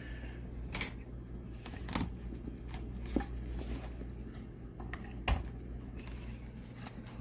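Scattered clicks and light handling knocks as a steering lock emulator is picked up and its connector plugged in, the sharpest click about five seconds in, over a steady low hum.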